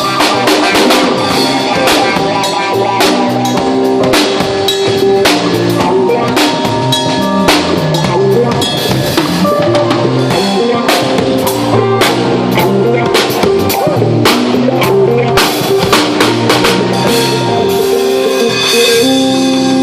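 Drum kit played in a steady groove with bass drum, snare and cymbals, backed by a band of bass guitar, keyboard and electric guitar playing a song together.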